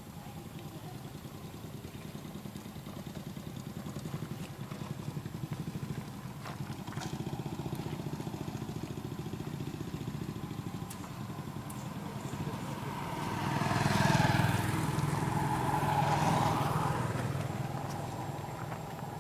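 A motor vehicle's engine running steadily, then growing louder as it passes close by, at its loudest about three-quarters of the way through before fading.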